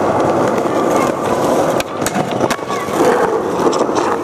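Skateboard wheels rolling steadily over a hard surface, with a few sharp clacks about two seconds in.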